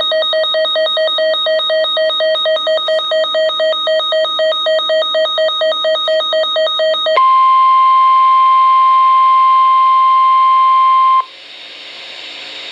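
Weather radio alert tones: a loud pulsing, warbling electronic tone for about seven seconds, then the steady single-pitch NOAA weather radio warning alarm tone (about 1050 Hz) for about four seconds. It cuts off suddenly, leaving a low radio hiss.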